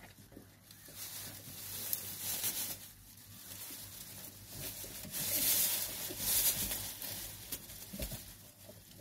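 Rustling and snuffling close to the microphone as a mother dog noses her newborn puppies on a blanket over straw, with a few faint puppy squeaks.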